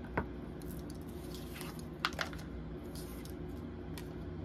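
A few soft taps and rustles of tarot cards being handled and set down, over a steady low electrical hum.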